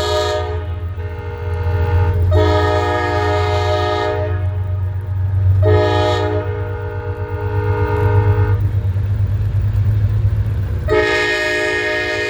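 Amtrak Empire Service locomotive's multi-chime air horn sounding four blasts, a short one and then three long ones, the last still sounding at the end. A steady low diesel locomotive rumble runs underneath.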